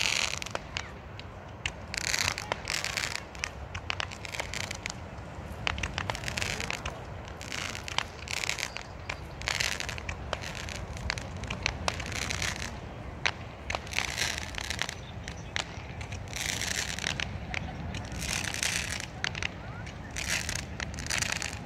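Small consumer fireworks going off again and again: sharp pops and crackles, with short hissing whooshes every second or two, over the steady low wash of surf.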